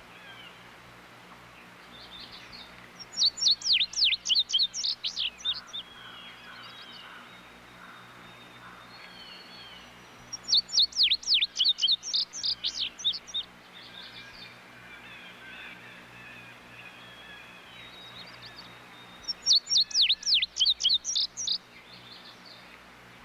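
Indigo bunting singing three songs, each a quick run of high, sharp down-slurred notes lasting about two and a half seconds, with pauses of several seconds between them. Fainter bird calls are heard in the gaps.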